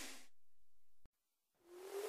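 Electronic background music fading out into near silence, then a rising whoosh with a climbing tone swelling in near the end, a transition effect leading into the next music.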